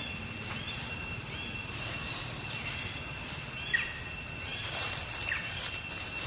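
Outdoor forest ambience: a steady high-pitched insect drone with overtones, with short falling chirps from animals scattered through it.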